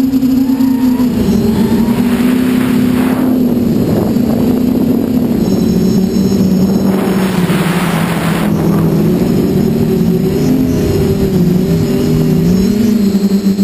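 Quadcopter's brushless motors and propellers buzzing steadily as it flies, heard close from its onboard camera, the pitch wandering up and down with throttle and dipping briefly near the end. Wind rushes over the camera's microphone twice along the way.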